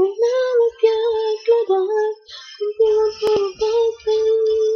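A female voice singing the closing lines of a Spanish pop ballad, holding long, steady notes with short breaks, a pause after about two seconds, and a sharp click a little after three seconds in.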